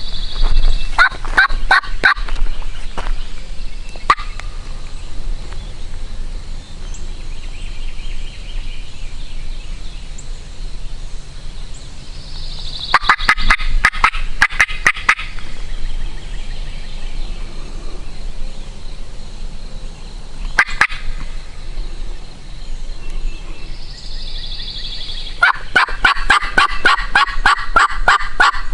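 A turkey call run in three series of rapid yelping notes, each a couple of seconds long: one near the start, one about halfway and one near the end.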